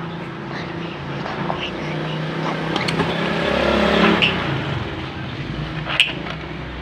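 A motor vehicle engine running nearby, swelling louder about halfway through and then easing off, with a couple of sharp clicks.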